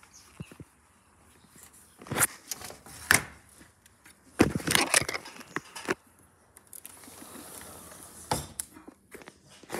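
Sliding patio door knocking and rattling in its frame and track as it is worked by hand, with a cluster of loud knocks about four and a half seconds in.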